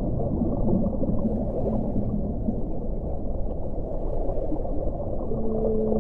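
Underwater ocean ambience: a dense, muffled rush of water sitting low in pitch. About five seconds in, a long, low steady tone begins over it.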